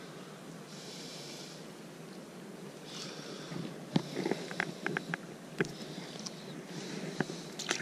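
Shallow creek water running steadily over a riffle, with a quick run of sharp clicks and taps about halfway through and a few more near the end, from handling a spinning rod and reel.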